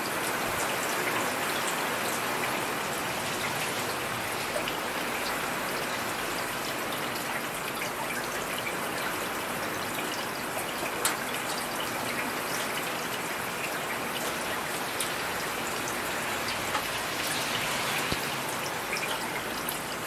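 Steady rain falling: an even hiss with scattered sharp taps of drops hitting surfaces.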